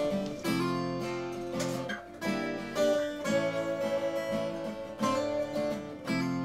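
Background music: acoustic guitar strumming chords, with a new chord about every second.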